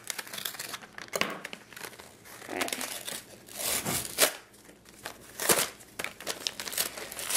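Toy packaging being torn open by hand: plastic crinkling and card tearing in irregular bursts.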